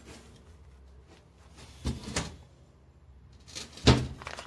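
Handling knocks from a suspension part being moved and set in place: two sharp knocks about two seconds in and a louder one near the end.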